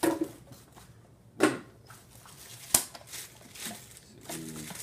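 Plastic packaging and plastic blender parts being handled: bursts of crinkling and rustling with a few knocks, the sharpest a crisp click a little before three seconds in.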